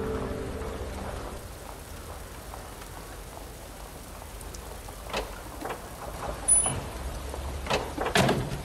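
A steady hiss of background noise as music fades out, then a scuffle inside a car: several short knocks and thumps from about five seconds in, the loudest near the end.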